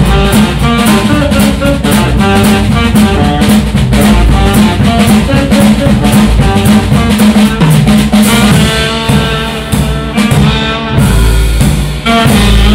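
Live jazz trio of saxophone, double bass and drum kit playing. The drumming is busy, with many quick hits, and thins out about two-thirds of the way through, leaving held melodic notes over the bass.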